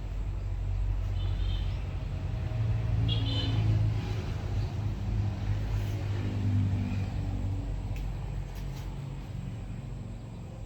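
A passing vehicle's low rumble, swelling twice and then fading away, with a couple of short high chirps in the first few seconds.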